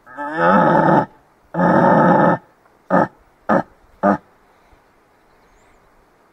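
Fiordland wapiti bull bugling close by: two loud calls of about a second each, the first sliding up in pitch as it starts, followed by three short grunts.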